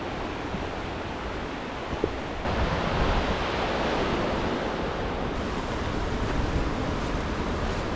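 Steady rushing of the Merced River running very high. The noise jumps suddenly louder about two and a half seconds in.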